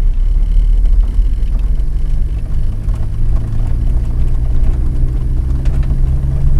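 Classic Mini's four-cylinder A-series engine under way, heard from inside the cabin, exhausting through a Ferrari silencer; the engine note climbs slowly and steadily.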